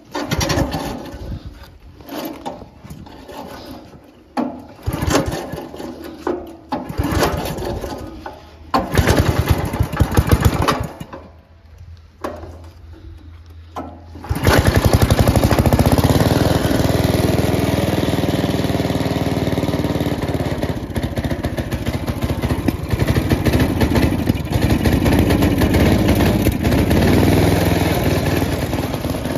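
1960s Simplicity Sno-A-Way snowblower's small gasoline engine being started: several separate cranking attempts with brief firing and a short run that dies. About fourteen seconds in, the engine catches and keeps running steadily.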